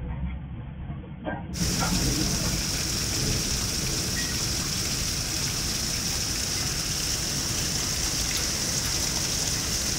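Heavy thunderstorm rain pouring down steadily, a dense hiss that cuts in suddenly about a second and a half in; before it, a muffled low rumble.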